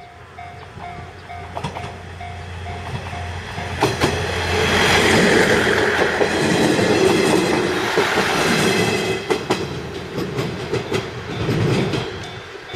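A Hachiko Line diesel railcar passes over a level crossing. Its rumble swells about four seconds in and is loudest in the middle, and near the end the wheels click over the rail joints. A crossing warning bell dings steadily at the start, until the train drowns it out.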